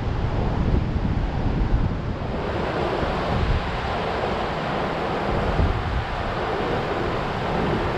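Ocean surf washing against the shore at high tide, its hiss swelling about two seconds in, with wind buffeting the microphone.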